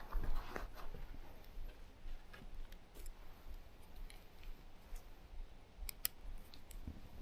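A few faint, scattered sharp clicks and ticks, two in quick succession near the end, over a low rumble.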